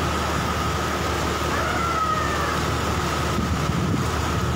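Steady rushing of a fast-flowing, flood-swollen river, with a faint steady high tone above it.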